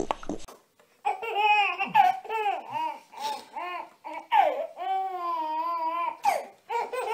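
A baby laughing in a run of short, high, rising-and-falling bursts, with one longer, wavering squeal near the middle.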